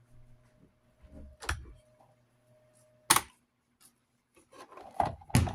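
Electric desk fan motor humming steadily, with a few light clicks. The hum cuts off with a sharp click about three seconds in, followed by a cluster of clicks and knocks from parts being handled.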